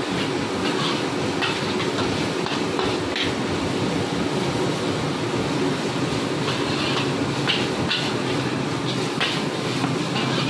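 Metal spatula scraping and clattering irregularly against a steel wok as fried noodles are stir-fried, over the steady rushing noise of the wok's gas burner.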